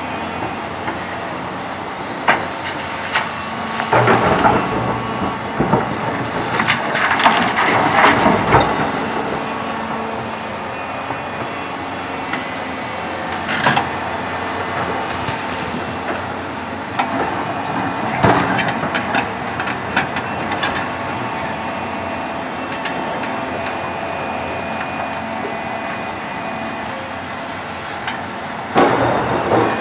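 Rock and earth clattering and crashing into a steel haul-truck dump body as a Hyundai R800LC-8 hydraulic excavator loads it. The longest bout comes in the first third, with shorter knocks later and another near the end as the bucket digs. A steady machine hum runs underneath.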